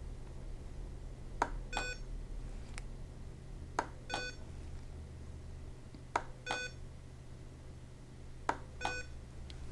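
SAV04 small animal ventilator cycling: a sharp click followed by a short electronic beep, repeating about every two and a half seconds, four cycles in all. It is ventilating a simulated patient with the flow rate turned down to lengthen the inspiratory time. A steady low hum lies underneath.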